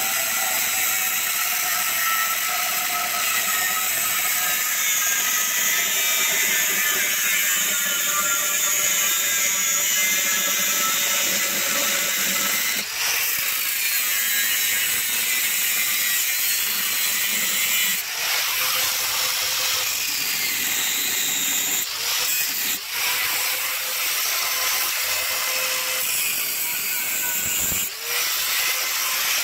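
Angle grinder with a cutting wheel running and cutting through a thin steel mounting bracket, a steady high grinding with a few brief dips in the second half as the wheel eases off the metal.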